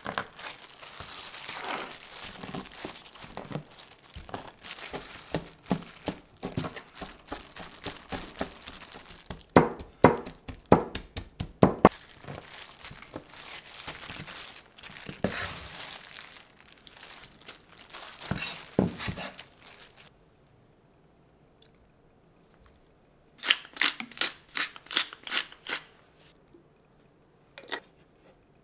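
Knife chopping and mashing raw peeled shrimp into a paste on a plastic cutting board, the blade knocking sharply on the board, with a plastic glove crinkling. The chopping comes in quick runs, pauses for a few seconds, then resumes briefly near the end.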